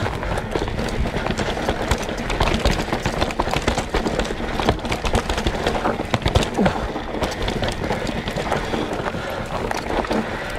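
Mountain bike riding down a loamy forest singletrack on a Schwalbe Magic Mary front tyre: a steady rush of tyres rolling over dirt, with many small clicks, knocks and rattles from the bike over roots and bumps.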